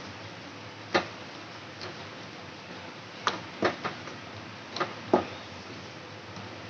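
Wooden spatula knocking and scraping against an aluminium kadai while stirring a dry masala filling: irregular sharp knocks, several clustered in the middle, the loudest about five seconds in.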